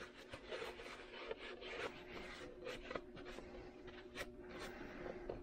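Paper towel rubbing and rustling over a small plastic cutting-oil bottle as spilled oil is wiped off it, with a couple of light clicks.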